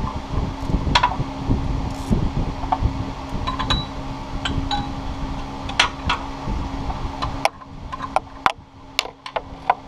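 Irregular light clicks and clinks of hand work with a tool among metal and plastic parts under a car, over a steady hum. The background noise drops about three quarters of the way through, leaving the clicks sharper.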